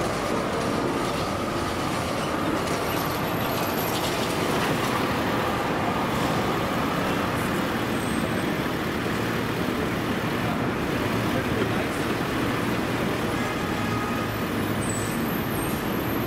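Steady city street noise: a continuous rumble of passing traffic at an even level.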